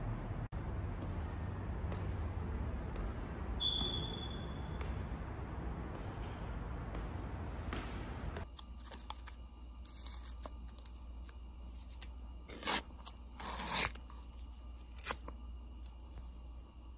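Steady background hiss for about eight seconds, with a short high squeak about four seconds in. Then, in a quieter room, the paper wrapper of an ice cream cone crinkles and tears three times, the middle one the longest.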